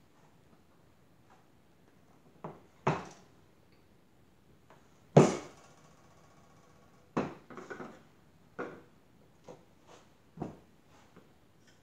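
A series of separate thumps and knocks from a block of clay being handled on a worktable and set into a plaster tile mold. The loudest, a bit past five seconds in, rings on briefly; a quick cluster of knocks follows at about seven to eight seconds.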